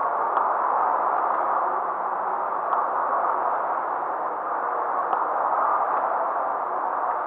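Air rowing machine's fan flywheel whirring steadily as it is rowed, with a faint click about every two and a half seconds at each stroke.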